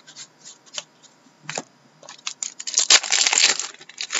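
Hockey trading cards being handled and flipped through by hand: a series of light card snaps and clicks, then about a second of dense rustling as the cards slide against each other near the end.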